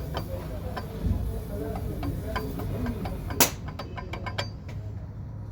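Diesel engine running with a steady low rumble and an irregular ticking knock, a few sharp clicks a second, with one louder click about three and a half seconds in.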